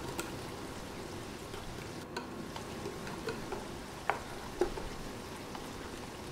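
Wire whisk stirring chocolate cake batter in a glass baking dish: a steady wet swishing, with a few sharp clicks of the whisk against the glass, two of them past the middle.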